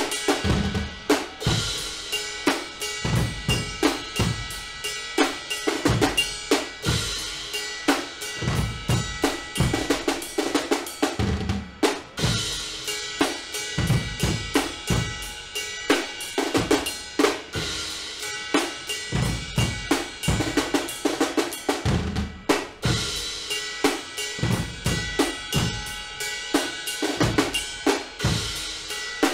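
Guggenmusik band playing: bass drums, snare drums and a drum kit with cymbals beat a steady, driving rhythm, with brass holding notes over it.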